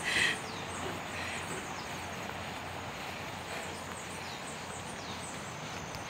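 Steady hiss of outdoor background noise with faint, high, short bird chirps every second or so.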